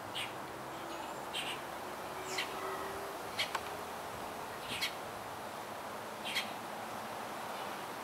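A bird chirping: about six short, high chirps at irregular intervals of one to one and a half seconds, over a steady low background rush.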